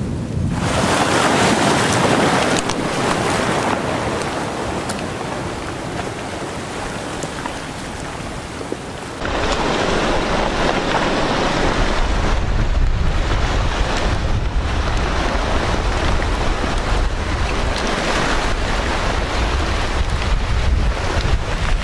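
Flash-flood debris flow, a front of mud, water and tangled wood pushing down a dry wash, making a loud steady rushing noise. About nine seconds in the sound changes to a deeper rumble with wind buffeting the microphone.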